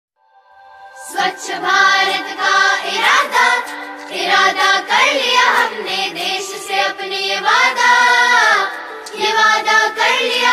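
Background song with singing voices over instrumental accompaniment, fading in after a moment of silence at the start.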